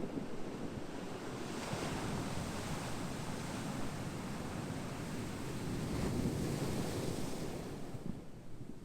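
Ocean surf washing in: a wave surges into a broad hiss about a second and a half in, holds, and eases off near the end, over a steady low rumble of the sea.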